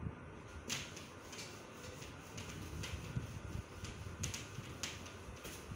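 Whiteboard duster wiping marker writing off a whiteboard: a series of short, separate rubbing strokes against the board.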